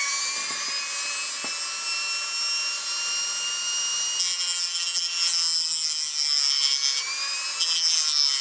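Dremel rotary tool running at a steady high whine. From about four seconds in it grinds into a small diecast model car, trimming back the body where the wheel rubs, with a rougher hiss in bursts.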